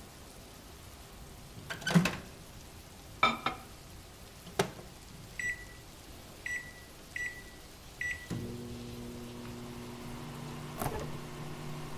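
Microwave oven being used to reheat food: a few clunks, then four short keypad beeps, then the oven starts up at about eight seconds in and runs with a steady hum.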